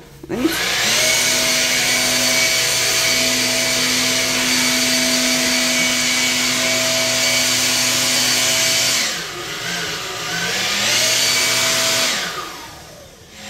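An electric motor running loud and steady with a whining hum. It spins up quickly about half a second in, sags and drops in pitch around nine seconds, spins up again and winds down near the end.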